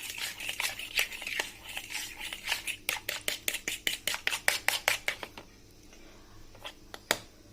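An egg being beaten in a bowl, the utensil clicking rapidly against the bowl at several strokes a second. The beating stops about five seconds in, followed by a couple of single knocks.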